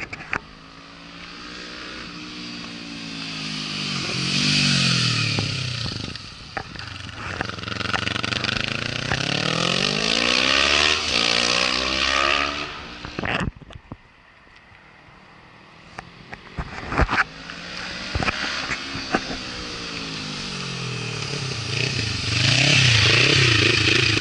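Kawasaki Ninja 400's parallel-twin engine through an Akrapovic carbon slip-on exhaust with the baffle bung fitted, ridden on the road. The engine note falls and then rises as the bike accelerates. It drops away sharply about halfway through, then builds again toward the end.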